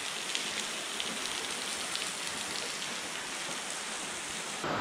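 Steady hiss of rushing and falling water in a rock gorge, with a faint patter of drops through it.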